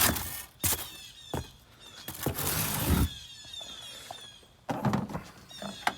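Razor blade scoring a cardboard box: a scratchy cut about two to three seconds in and several sharp knocks of the box, over repeated short high squeaky chirps.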